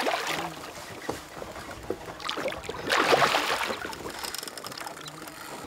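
A big hooked pike thrashing at the surface beside the boat, splashing and churning the water, with a louder surge of splashing about three seconds in.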